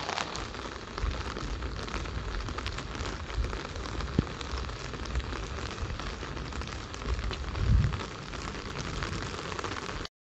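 Steady hiss of heavy rain falling, with scattered raindrop ticks and low rumbles on the microphone, the loudest about three quarters of the way through.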